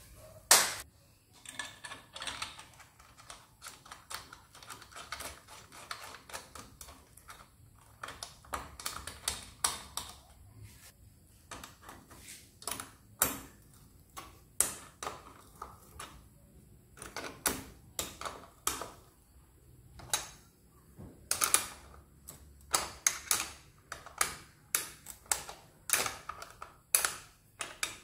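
Irregular sharp metal clicks and clinks of hand tools on a drill's keyed chuck and spindle: a chuck key, then a spanner and an adjustable wrench, being fitted and worked against the steel parts. The clicks come singly and in quick clusters.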